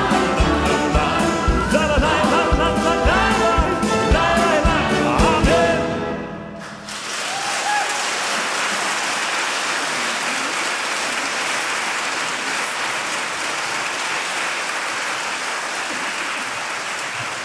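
Choir and orchestra with drum kit playing the closing bars of a song over a steady drum beat, stopping about six seconds in. Audience applause follows and runs on evenly.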